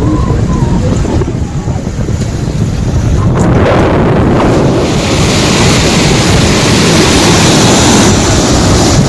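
Wind buffeting the microphone over a boat's low rumble and the rush of water along the hull. From about four seconds in, a louder hissing rush of the foaming wake joins in.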